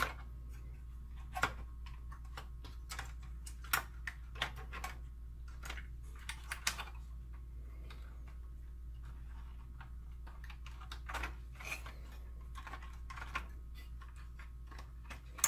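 Irregular light clicks and taps as hands move wires and handle the plastic and metal parts inside an opened DLP projector chassis, a few of them sharper, over a steady low hum.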